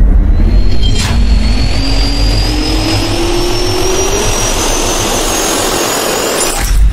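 Sound effect of a jet turbine spooling up: a rising whine over a building rush of air, with a sharp hit about a second in, cutting off suddenly near the end.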